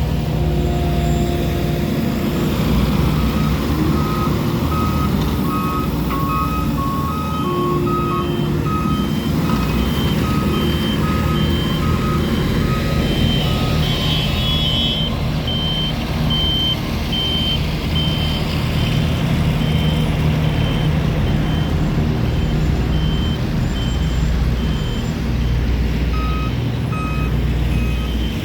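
Reversing alarms on heavy road-construction vehicles, two or three at once, beeping in evenly spaced series at different pitches and rates over the steady engine rumble of the machines.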